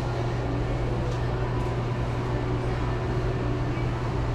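Steady low machine hum, with a few faint light clicks about a second in.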